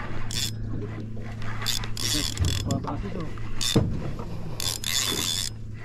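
Spinning reel being cranked, its gears whirring and clicking as line is wound in. A steady low hum runs underneath, with short bursts of hiss coming and going.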